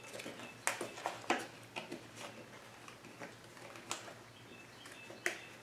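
Soft, scattered clicks and rustles of hands peeling a paper warning tag off the plastic front panel of a generator that is not running.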